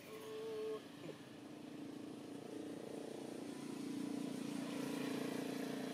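A motor engine drones steadily, growing louder to a peak near the end and then easing slightly, like a vehicle passing. A short, flat tone sounds at the very start.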